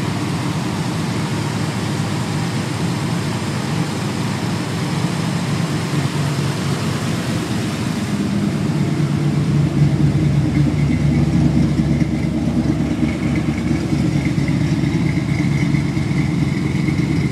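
A 355 small-block V8 with a mild cam, long-tube headers and true dual exhaust, swapped into a Mazda RX-7, idling steadily. It grows louder and deeper about nine seconds in, nearer the exhaust tips.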